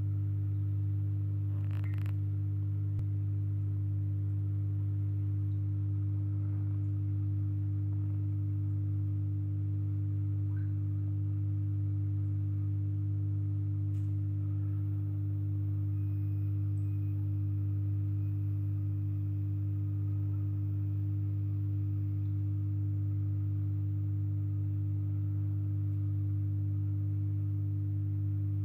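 Steady low electrical hum of running aquarium equipment on a large tank, with a couple of faint ticks, one about two seconds in and one near the middle.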